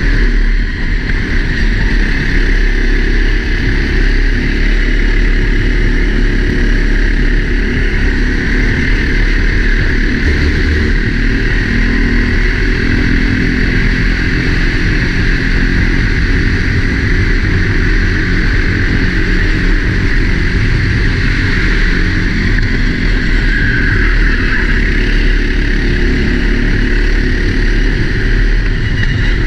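Four-stroke Sodi racing kart engine running steadily under load, heard onboard from a helmet-mounted camera.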